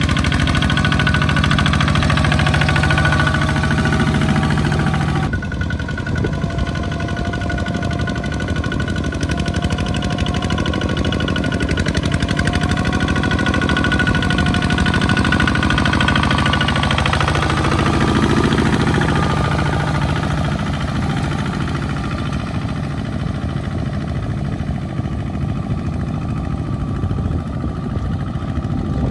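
Two-wheel walking tractor's single-cylinder diesel engine running steadily under load as it hauls a loaded trailer through deep mud. The sound changes abruptly about five seconds in, and the engine note shifts again a little past halfway.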